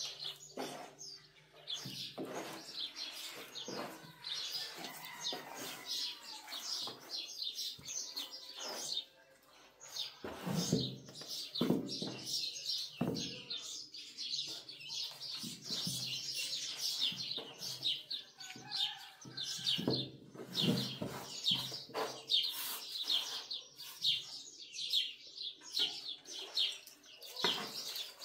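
Many small birds chirping and twittering without pause. A few louder, deeper noises break in now and then.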